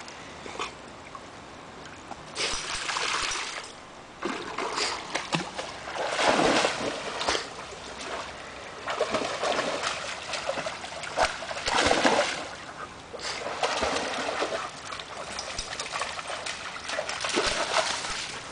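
A German Shepherd wading and splashing through a shallow creek, in repeated bursts of splashing a second or two long, with the stream trickling between them.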